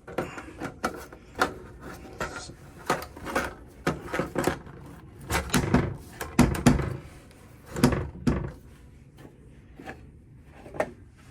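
Clicks and knocks of a B&T SPR300 Pro rifle being handled while a 30-round magazine is swapped in, with a cluster of heavier clacks around the middle.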